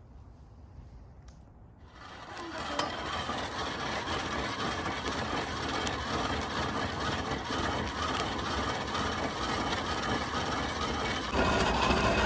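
Small blower fan on a wood-fired camp stove switching on about two seconds in and running steadily, forcing air into the fire to get it burning hard.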